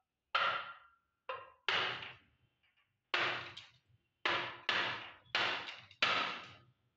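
A stone striking the glass funnel of a CRT picture tube, about eight sharp knocks at uneven intervals, each dying away with a short glassy ring, as the already vented tube's glass cracks.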